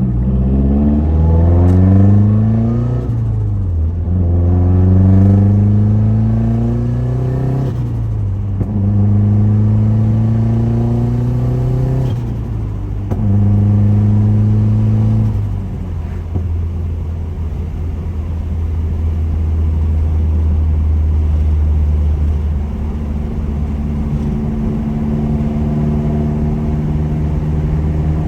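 Mazdaspeed3's turbocharged 2.3-litre four-cylinder, with a BNR Stage 3 turbo and the bypass valve blocked off, accelerating through four rising pulls, each cut short by a lift-off for the shift, where the blocked valve makes the turbo flutter. For the last dozen seconds the engine runs at a steady, lower speed.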